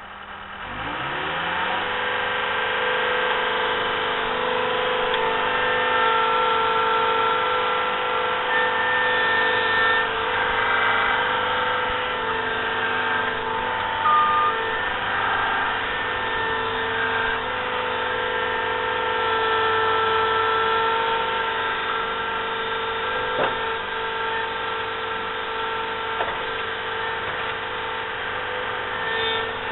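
Skid steer's engine rising in pitch as it is throttled up, then running steadily at high revs with a steady hydraulic whine as the machine is driven.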